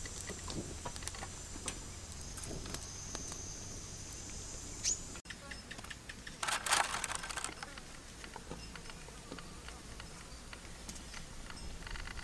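Insects buzzing with a steady high drone through the first five seconds. After a cut, a brief rustling burst comes about a second and a half later, followed by quieter background.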